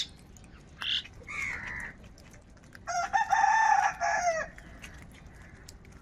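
House crows calling: a few short harsh caws in the first two seconds, then one long, drawn-out call of about a second and a half, the loudest of them.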